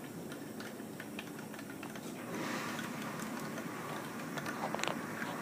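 Small electric motor of a tornado-in-a-bottle device running on its third setting, spinning the water, with a steady whir and light ticking that grows a little louder about two seconds in; a few sharp clicks near the end.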